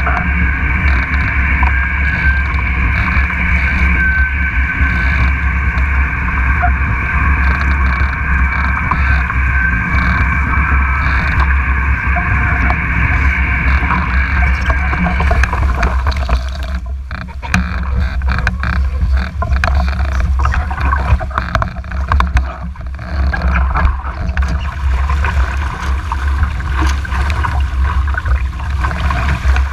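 Wind rumbling on the action-camera microphone and water rushing past a foiling Moth sailing dinghy at speed, with a steady high whine through about the first half. The whine stops about halfway through, and uneven splashing and spray take over as the boat comes down toward the water.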